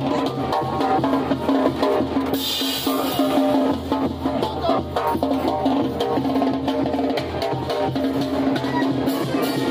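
Live brass band playing as it marches: sousaphones holding a bass line under trumpets, with a bass drum and mounted cymbal beating a steady rhythm. A short cymbal-like crash sounds about two and a half seconds in.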